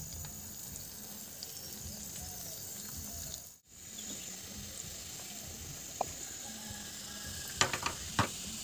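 Hot oil sizzling and bubbling as small balls of onion and gram-flour batter are dropped in to deep-fry pakkavada. The sound breaks off for a moment a little over three seconds in, and a few sharp clicks come near the end.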